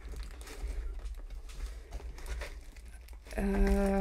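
Cardboard box lid being pried and worked open by hand, with soft scraping and crinkling of the cardboard. Near the end comes a steady low hum lasting about a second.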